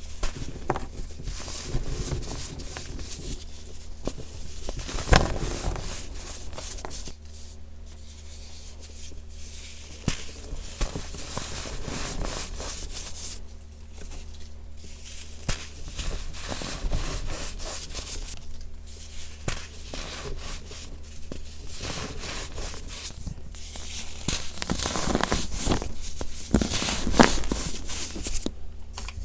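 Gritty baking soda being squeezed and crumbled by hand, with dense, irregular crunching and crackling that comes and goes, and squeaks as the powder is pressed.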